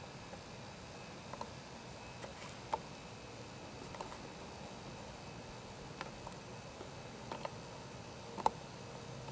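A steady, unbroken high-pitched insect trill over a faint hiss, with a few soft clicks scattered through, the sharpest near the end.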